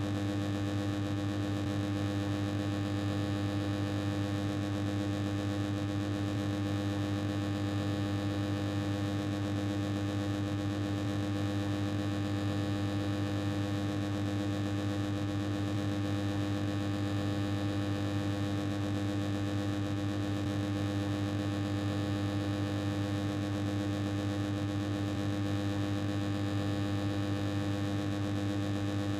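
Noisy machine running with a steady low hum and buzz over a hiss, unchanging throughout.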